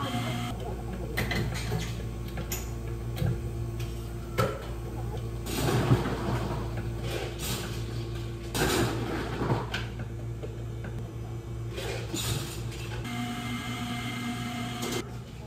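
Café counter work: a steady hum of equipment under scattered clinks and knocks of cups and tools, with two longer rushing noises around the middle. A machine's steady whine comes in near the end.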